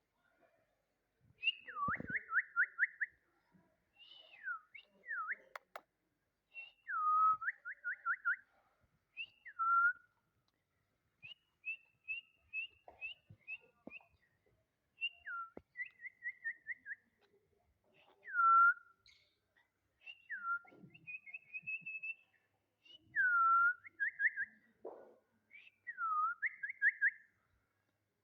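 Parrot whistling a repeated phrase over and over: a downward swooping whistle followed by a quick run of short, even notes. Between phrases come short, high chirps.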